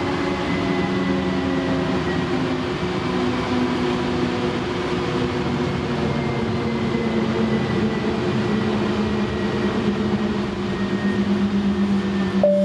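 Inside a Siemens S70 light rail car running and slowing into a station: steady rumble of the wheels on the rails, with an electric motor whine that slowly falls in pitch. A chime starts at the very end.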